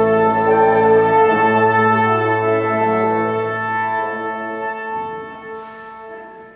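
Instrumental ensemble holding a long sustained chord; the lowest notes drop out about five seconds in and the chord fades away near the end.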